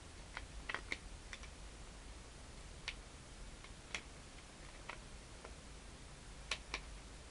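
Scattered plastic clicks from a Rubik's Magic folding-tile puzzle being flipped and refolded by hand, a few sharp clicks at irregular moments.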